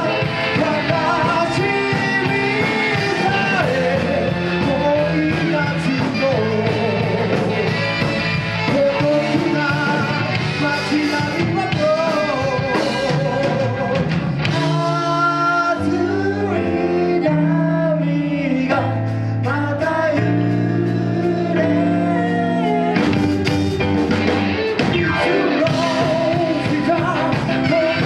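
Live band playing a rock-and-roll song, with singing over guitar and bass.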